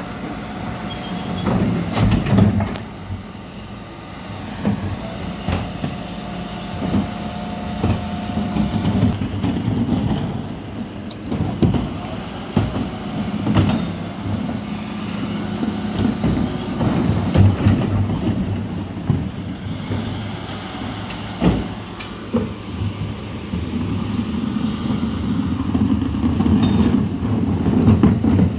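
Mercedes-Benz Econic refuse lorry with a Terberg Olympus body running at a steady idle, with repeated knocks and clatter of plastic wheelie bins being handled at its rear bin lift. About six seconds in, a thin steady whine sounds for a few seconds.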